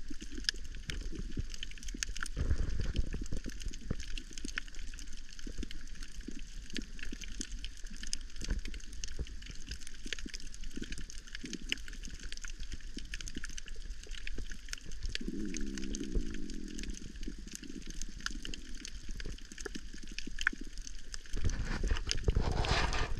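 Underwater ambience on a coral reef: a low rush of moving water with a dense crackle of small clicks, getting louder near the end.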